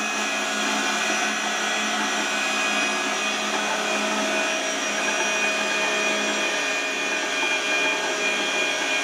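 Electric pipe threading machine running steadily while its die head cuts a thread on a GI pipe: an even motor-and-gear whine with several steady tones and no change in level.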